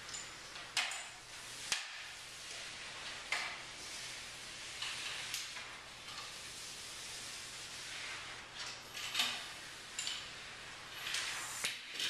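Irregular rustling and scraping of paper sheets being handled near the floor, with several sharp small clicks.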